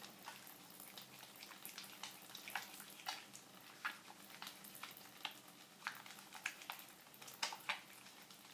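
Wet hands rubbing a bar of olive-oil Castile soap to work up a lather: faint wet squishing with irregular small crackles of bubbles.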